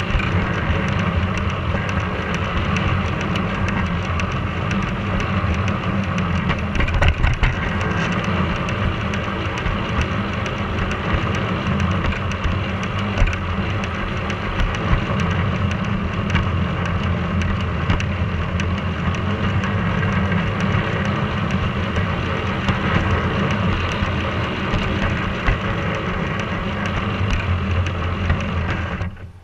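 G scale model tram running on its track, heard from on board: a steady low hum from its electric motor drive with a fine crackling rattle of wheels on the rails. The sound cuts off suddenly near the end.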